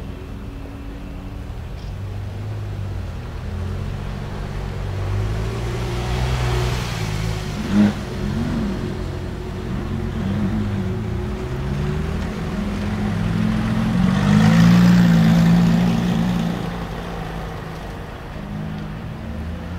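Car engines running, their notes rising and falling, growing louder to a peak about 15 seconds in and then fading. There is a short sharp knock about 8 seconds in.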